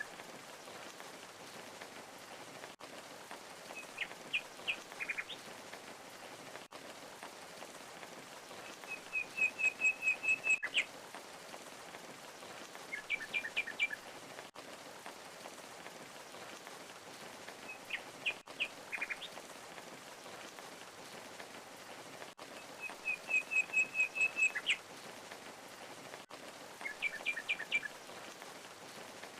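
Steady rush of falling water with a bird singing short chirped phrases every four to five seconds, two of them a rapid trill of about eight notes.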